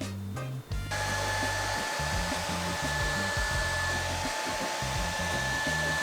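Dreame T20 cordless stick vacuum switching on about a second in, then running steadily with a rush of air and a high motor whine.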